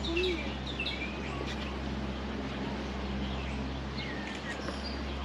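Small birds chirping: several short calls in the first second and a half and a few fainter ones about four seconds in, over a steady low hum.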